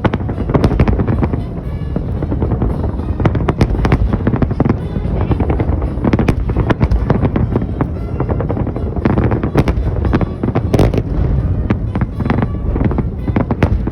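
Fireworks salute bursting: a dense, continuous run of bangs and crackles overhead, with several louder reports clustered about nine to eleven seconds in.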